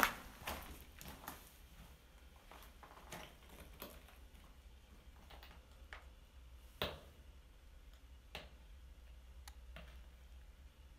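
Footsteps on loose stone rubble, heard as scattered, irregular faint clicks and crunches, with a sharper knock at the very start and another about seven seconds in.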